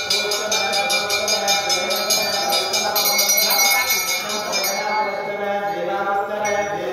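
A ritual bell ringing rapidly and evenly over voices chanting mantras for a homam fire offering. The bell stops about two-thirds of the way through, and the chanting carries on.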